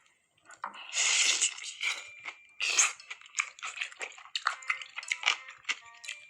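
Food being handled in the kitchen: two loud bursts of crunchy rustling, then a run of quick light taps and clicks.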